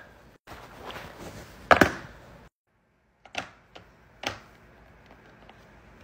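A few sharp knocks and clacks of phones being handled and set down on a tablet's hard surface, the loudest about two seconds in and two more about a second apart later on, with brief dead-silent gaps between clips.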